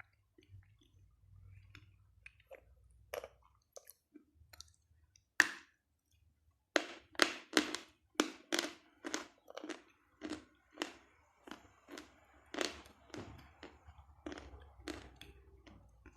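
Close-up crunching of a dry piece of edible chalk being bitten and chewed: a few faint clicks, a sharp crack of a bite about five seconds in, then steady crunchy chewing at about two crunches a second.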